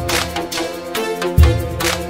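Background music with drum hits under sustained melodic tones, a heavy kick about one and a half seconds in.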